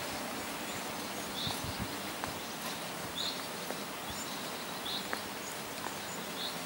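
A small bird calling with short high chirps, roughly one a second, over steady open-air background noise.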